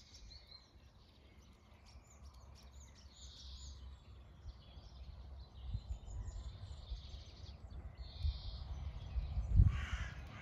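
Crows cawing with short bird chirps, over a low rumble that grows louder in the second half. A sharp thump comes near the end.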